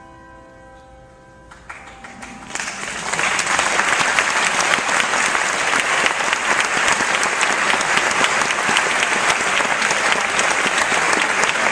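A handbell ensemble's final chord ringing, stopped short just under two seconds in, followed by loud, steady audience applause.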